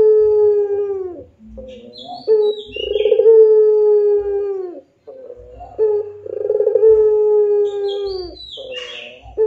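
White ringneck dove (puter) giving long drawn-out 'pelung' coos: each opens with a rolling burr, then holds a steady low note for a couple of seconds and drops away at the end. One coo ends about a second in, another runs from about three to five seconds, a third from about six to eight. Brief high chirps come between the coos, around two seconds and again near the end.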